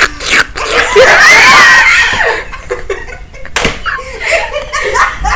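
Uncontrollable, hysterical laughter: a high-pitched shrieking laugh held for about a second, then breaking into gasping, choppy bursts of laughing. A sharp slap comes about three and a half seconds in.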